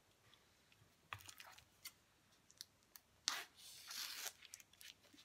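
Scissors cutting open the plastic wrapping around a stack of thin wooden craft boards. A few light clicks as the scissors and pack are handled, then about a second of crinkling and snipping plastic, beginning about three seconds in.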